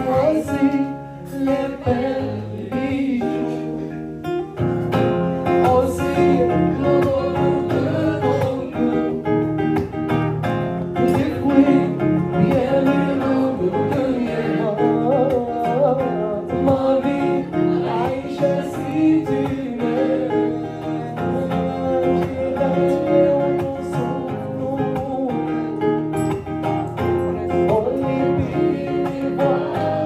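A man singing while playing a classical-style acoustic guitar, live into a microphone, with steady plucked and strummed chords under the vocal line.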